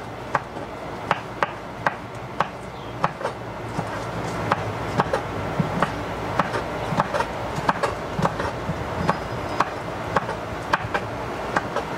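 Knife chopping fresh scallion on a cutting board: a steady run of short, sharp knocks, roughly two a second and unevenly spaced.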